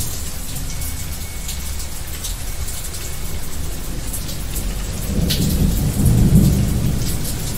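Thunderstorm: steady rain with the patter of drops throughout, and a low rumble of thunder that swells about five seconds in and peaks a second or so later.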